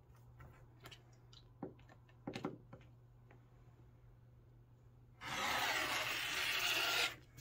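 A few light taps as a quilting ruler is set in place. Then a rotary cutter runs along the ruler for about two seconds, a steady rasping slice through the quilt's edge on the cutting mat.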